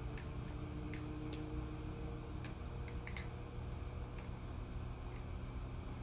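Balisong butterfly knife (TheOne Alien) being fanned in the hand: short, sharp metallic clicks at irregular intervals, a cluster of them around three seconds in, as the handles and blade swing around the pivots and knock together, over a steady low hum.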